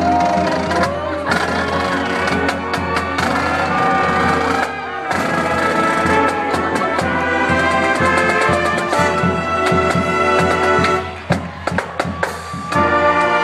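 Brass band playing, trumpets and trombones over drums, with held notes. The music breaks off briefly about five seconds in and drops away for a moment near the end.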